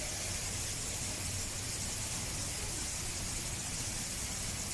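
Steady hiss with a low hum underneath, unchanging throughout.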